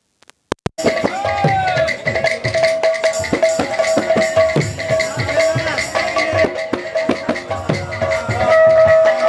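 Sambalpuri kirtan music cuts in abruptly under a second in, after silence and a few clicks: dhol drums beaten in a running pattern of strokes under a steady held high tone.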